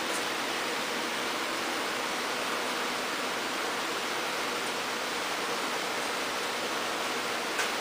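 A steady, even hiss, with a small click near the end.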